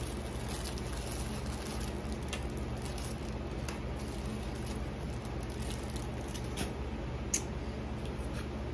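Takeout packaging being handled: soft rustling and a few light clicks of containers and a paper bag, the sharpest click about seven seconds in, over a steady low hum.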